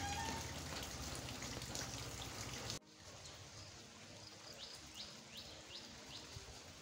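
Steady rain noise that cuts off abruptly just under three seconds in, giving way to a quieter outdoor background in which a bird calls in a series of short, quick chirps.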